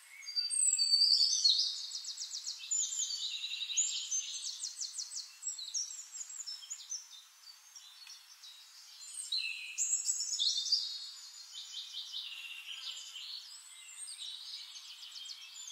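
Songbirds chirping and trilling in quick high phrases, the loudest burst in the first couple of seconds and another around two-thirds of the way through.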